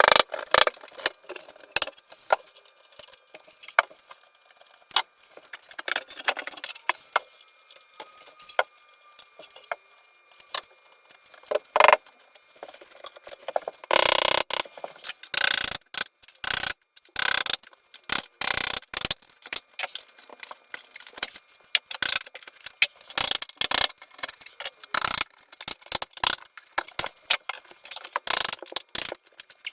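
Irregular clicking, tapping and clattering of tools and hardware during closet carpentry work, with one longer noisy stretch of about a second some fourteen seconds in.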